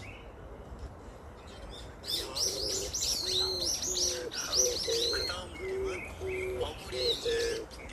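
Oriental turtle dove cooing, a steady run of short low notes beginning about three seconds in, while small birds chirp loudly over it from about two seconds in.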